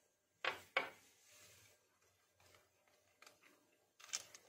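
Two sharp knocks, then near the end a plastic spoon scraping and clicking against a glass bowl as it starts stirring icing sugar into mayonnaise.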